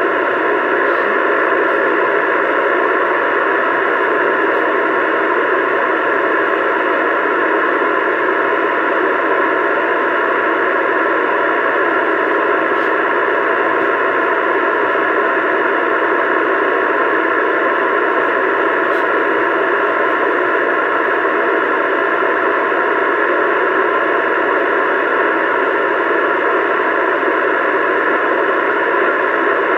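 CB radio receiver giving a steady static hiss through its speaker, with no station coming through.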